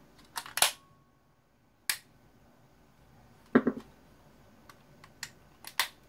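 Sharp clicks and knocks of hand tools on the hard plastic and metal parts of a Dyson SV10 cordless vacuum's motor and battery housing as a part is worked loose. A few clicks come near the start, one about two seconds in, a heavier knock a little past halfway, and more clicks near the end.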